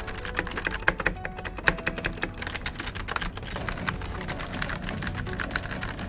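Fast typing on an Akko 3108 mechanical keyboard with Akko Blue clicky switches and PBT keycaps: a dense, continuous stream of key clicks, not too sharp.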